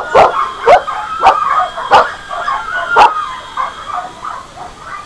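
Shelter dogs barking at the person in short sharp barks about every half second to a second, with whining between them; the barks thin out after about three seconds.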